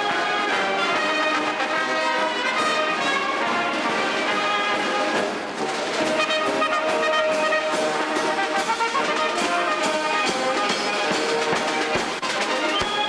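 A brass band playing, with full chords of held notes.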